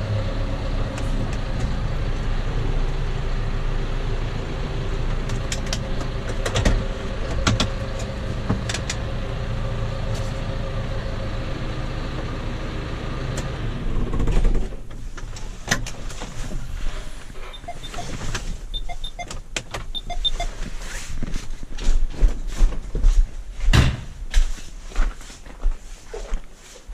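Tractor engine running steadily, then stopping abruptly about halfway through. Afterwards, irregular knocks and clatter.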